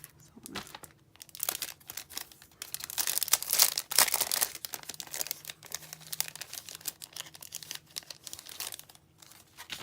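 Packaging crinkling and tearing as a pack of paper die cuts is unwrapped and handled: irregular crackling, loudest about three to four and a half seconds in.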